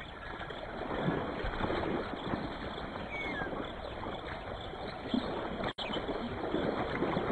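Shallow water sloshing and splashing irregularly, with a brief high chirp about three seconds in.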